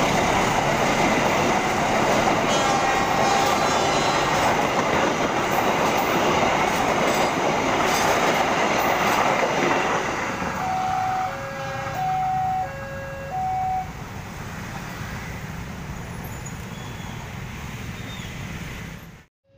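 A long passenger train's coaches passing close by at speed, a loud rumble and rush of wheels on rail that falls away about halfway through as the tail of the train goes by. After that the sound is quieter, with a few short, steady tones that alternate between two pitches.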